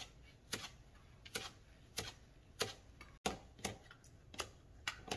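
Chef's knife chopping fresh parsley on a plastic cutting board: sharp knocks of the blade on the board about two a second, coming a little faster in the second half.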